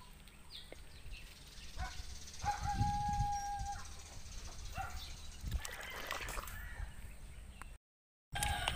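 One long animal call held at a level pitch for about a second, a few seconds in, over faint outdoor background with low thumps.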